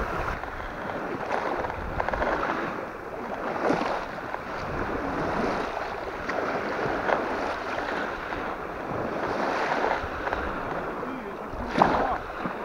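Steady wind with small waves washing at the shore, and two brief sharp knocks, one about four seconds in and one near the end.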